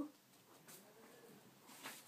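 Near silence, with a faint sound in the background that rises and falls in pitch for about half a second, the husband's weird noise. Near the end comes a brief soft rustle of hardback books being handled on the stack.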